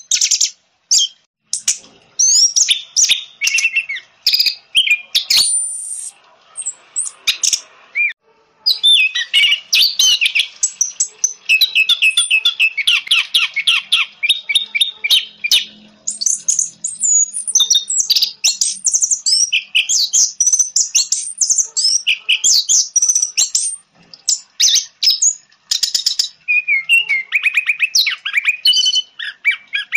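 Orange-headed thrush singing a long, varied song of high chirps, whistles and fast trills, broken by short pauses, with a run of quick repeated notes around the middle.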